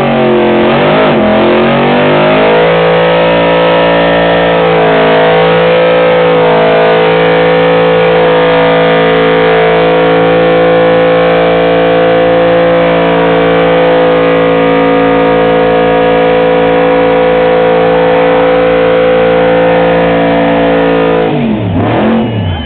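1969 Chevy pickup's engine revved and held at high, steady revs through a tyre-smoking burnout. It climbs over the first couple of seconds, then falls away sharply near the end as the throttle is let off.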